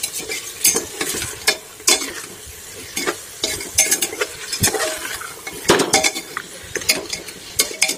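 Raw mutton pieces being stirred with a ladle in hot oil in a metal pressure cooker: the meat sizzles as it starts to fry, and the ladle scrapes and knocks against the pot many times at an irregular pace.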